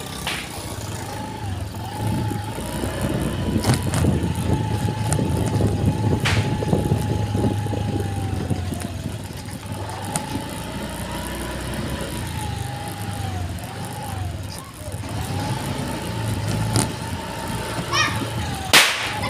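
Motorcycle engine running as it rides along a rough concrete lane, its pitch dipping and picking up again several times as the throttle eases and opens. A few sharp knocks are heard along the way.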